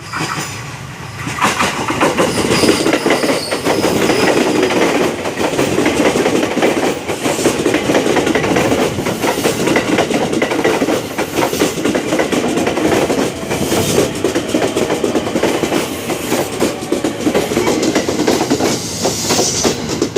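KRL Commuter Line electric multiple-unit train passing close by, its wheels clattering over the rail joints in a continuous rush of noise that builds up about a second in.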